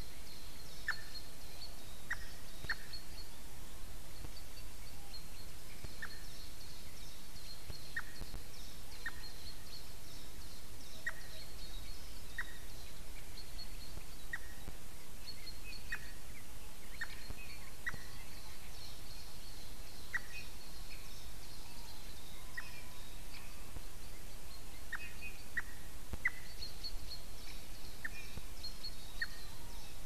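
A woodpecker giving short, sharp single calls, each a quick falling note, one every second or two at irregular intervals, over a steady hiss and faint high chirping.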